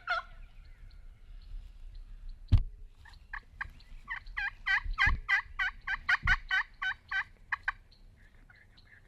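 Turkey calling: a long, rapid run of about twenty short yelping notes, evenly spaced at roughly five a second, beginning about three seconds in. A sharp knock sounds just before it, and a couple of duller thumps come during it.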